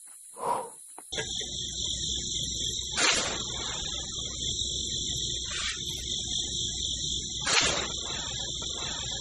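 Steady high-pitched chirring of insects such as crickets, starting about a second in, with a few short scraping sounds as a small toy shovel digs into loose soil.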